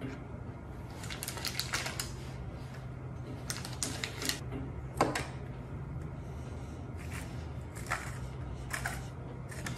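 Crinkling butcher paper and scattered taps and clicks as raw fish fillets are unwrapped and set down on a plastic cutting board, over a low steady hum. Near the end comes the grinding of a salt grinder over the fish.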